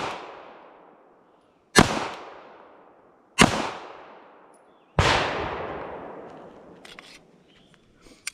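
Three shots from a SIG Sauer P226 MK25 9mm pistol fired slowly, about a second and a half apart, each with a long echoing tail; the echo of a shot fired just before runs into the start. A few faint clicks near the end.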